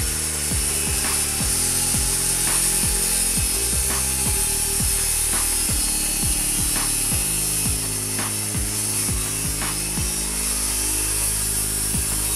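Handheld circular saw cutting through a laminate countertop along a guided line: a steady, high-pitched cutting noise. Music plays underneath.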